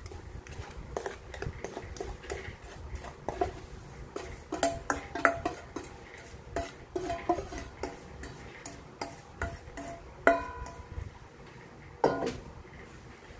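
A spatula scraping and knocking against a stainless steel bowl and a metal springform pan as buttered graham crumbs are scraped out: a run of clicks and knocks, some with brief metallic ringing. The loudest knocks come about five and ten seconds in.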